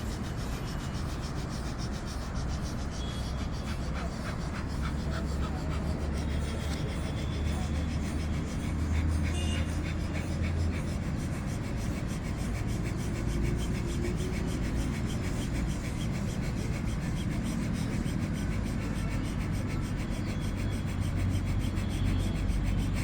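Fingers rubbing along the sides and bridge of the nose during a yogic nose-cleansing massage, with breath drawn in and let out through the nose, over a steady low background hum.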